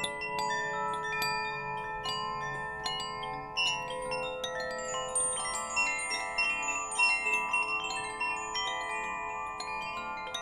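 Wind chimes tinkling, struck irregularly and often, their clear tones overlapping and ringing on without a break.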